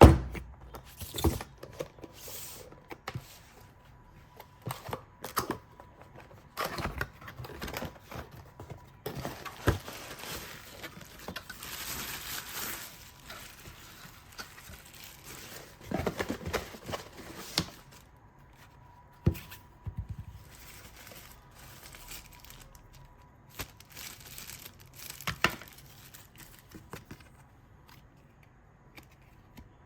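Packaging being handled at close range: irregular tearing and crinkling with scattered clicks and knocks, and a longer stretch of rustling about nine to thirteen seconds in.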